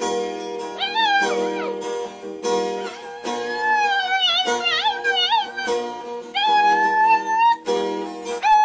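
A puppy howling along to a strummed acoustic guitar, its long howls sliding up and down in pitch over the chords.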